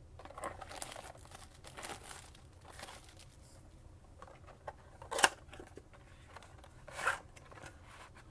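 Cardboard trading-card blaster box being torn open and its wrapped packs rustling and crinkling as they are pulled out, with a sharp snap about five seconds in.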